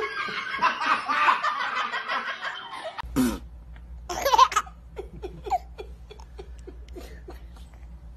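Hearty laughter for about three seconds, then, after a cut, a baby laughing in its sleep: a louder giggle about a second after the cut, then a run of short little chuckles, over a faint steady hum.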